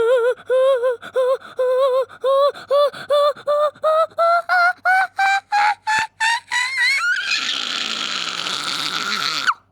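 A voice makes a rapid string of short gasping 'ah' sounds, about three a second, climbing steadily in pitch like the build-up to a sneeze. About seven seconds in it gives way to a long, loud hissing blast that cuts off suddenly.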